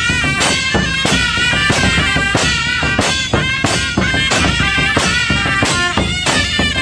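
Loud festive folk-style music: a reedy, wavering wind-instrument melody over a steady, quick drum beat.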